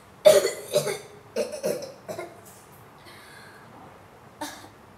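A boy coughing hard into a tissue, about five coughs in quick succession in the first two seconds and one more near the end. It is a staged cough, acting out coughing up blood as a symptom of tuberculosis.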